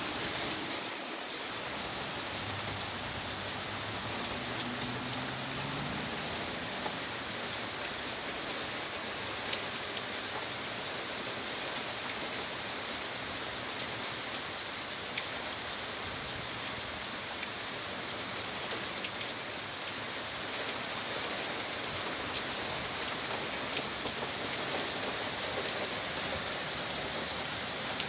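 Heavy rain falling steadily, a dense even hiss with scattered sharper drip ticks close by.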